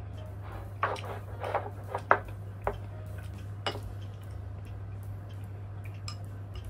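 Chopsticks and ceramic bowls clinking lightly in a series of short clicks, loudest about two seconds in, as a small bowl is picked up from the table and stirred, with a steady low hum underneath.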